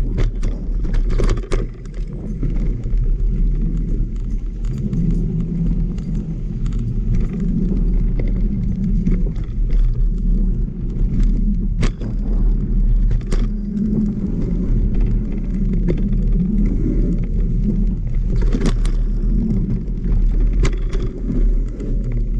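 Mountain bike riding over a dirt trail: a steady low rumble of tyres and riding noise, with a few sharp clanks and rattles from the bike as it goes over bumps.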